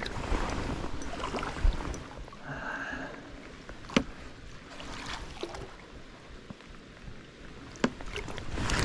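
Water splashing and sloshing at the side of a small boat as a hooked smallmouth bass is fought in close, with a couple of sharp knocks.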